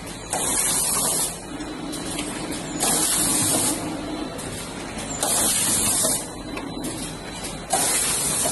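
Rotary zipper pouch packing machine running, its pneumatics letting out a hiss of compressed air about every two and a half seconds, four times, over the machine's steady running noise.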